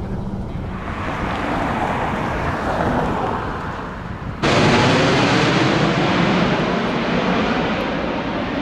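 Road and wind noise from a car being driven, an even rush that grows louder. About four seconds in it jumps abruptly to a louder, brighter rush.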